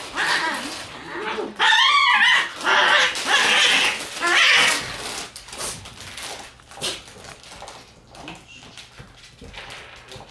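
Red Shiba Inu puppy giving strange wavering, warbling cries while play-fighting: about four loud ones in a row, then quieter short yips and whines.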